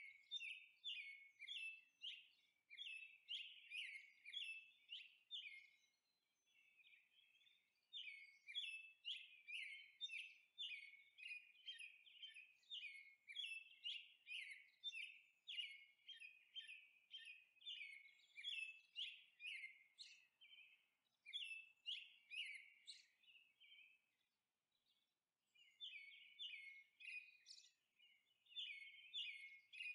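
Felt-tip marker tips squeaking as they are dabbed onto paper, short high chirps several times a second, pausing briefly about six seconds in and again near twenty-four seconds.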